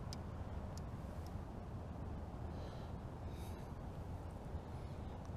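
Quiet, steady background noise with a low rumble, and a couple of faint clicks in the first second.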